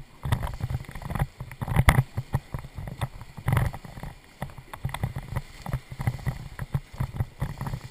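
Inflatable raft on choppy river water: rushing, splashing water with a run of irregular knocks and thumps close to the camera, the loudest about two seconds and three and a half seconds in.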